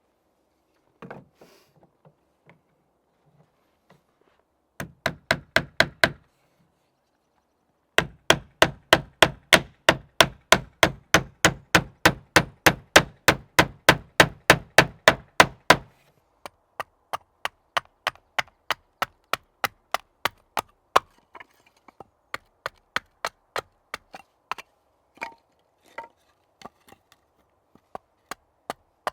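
A hand tool striking wood in rapid, even runs of several blows a second: a short run about five seconds in, a long loud run from about eight to sixteen seconds, then lighter, more spaced strikes.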